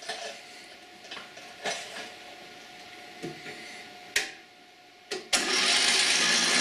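Electric starter cranking a 20 hp Briggs & Stratton Intek lawn tractor engine with the spark plug out, an even spin that starts about five seconds in after a few clicks and knocks. The compression gauge shows nothing: the engine has no compression.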